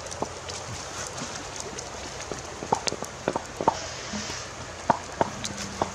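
Open wood fire crackling under the grilling fish: irregular sharp pops and clicks over a steady hiss, coming more often in the second half.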